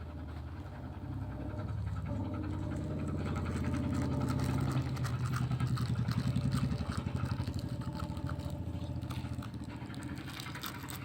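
A vehicle engine running with a low, rapidly pulsing hum. It grows louder toward the middle, then fades.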